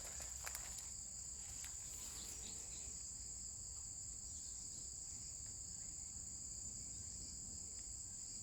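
Steady, high-pitched chorus of insects: one shrill, unbroken trill over a weaker, lower one, with a few faint rustles and clicks in the first second.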